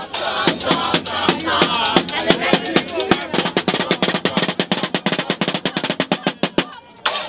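Snare drums playing a drum roll whose strokes get faster and faster over several seconds. It breaks off briefly near the end, then comes back in with a loud hit. A voice is heard over the drumming at first.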